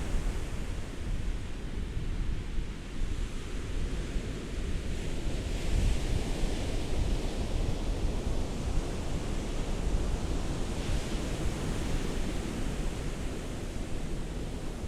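Ocean surf: a continuous rush of waves with a deep low rumble, and the hiss of a wave washing in swelling about six seconds in and again about eleven seconds in.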